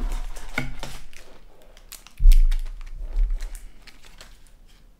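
Packaging crinkling and rustling as an item is pulled from a box and handled, with a dull thump a little over two seconds in.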